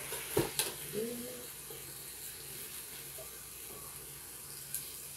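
Bacon-wrapped chicken sizzling steadily in a flip waffle maker while the grease drains out. There are a couple of sharp clicks about half a second in and another near the end.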